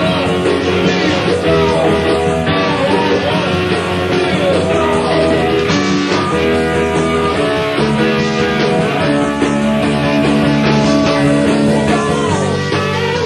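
Rock band playing live, with electric guitar, bass and drums, in a loud, raw recording.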